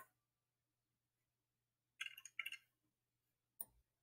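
Near silence broken by a few faint, short clicks of a computer mouse: one at the start, a quick pair about two seconds in, and one near the end.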